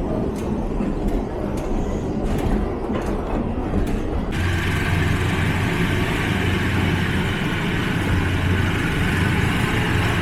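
Diesel-hauled passenger train running on the rails: a steady rumble with a run of clicks from the wheels over the track. About four seconds in it turns suddenly into a louder, steady rumble with a low hum and hiss.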